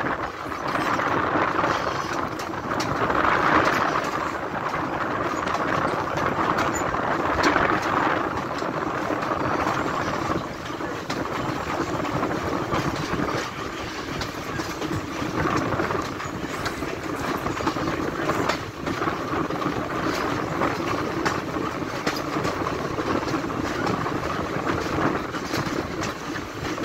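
Chesapeake & Ohio #1309, an articulated 2-6-6-2 Mallet steam locomotive, working hard under heavy smoke, heard from a car behind it: a steady mix of exhaust, wheel and rail noise. The noise swells and eases several times in the first few seconds, then holds steady.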